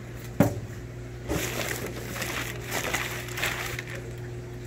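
Newspaper packing and heat packs rustling and crackling as they are pulled out of a fish-shipping box, with a sharp knock about half a second in.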